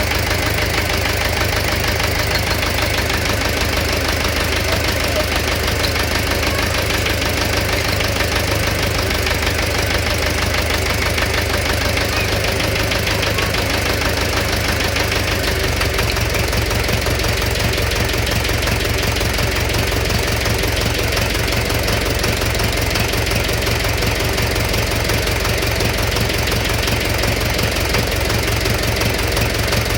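Engine idling steadily with a knock in it. The low hum shifts slightly about halfway through.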